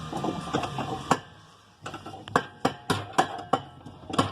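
Repeated sharp knocks of a tube being driven against the worn clutch bushing of a Whirlpool washing machine to force it down out of its seat. The knocks become a steady run of about three to four blows a second from about two seconds in.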